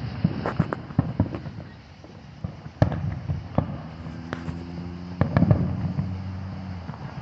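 Aerial firework shells bursting at a distance: a string of bangs and crackles, the loudest about three seconds in and again a little after five seconds. A low steady hum runs underneath from about four seconds in until just before the end.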